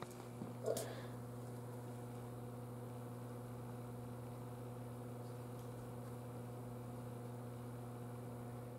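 Steady low electrical hum with a stack of evenly spaced overtones, the mains hum of the high-voltage lab's electrical equipment. A faint click at the start and a brief small rustle under a second in.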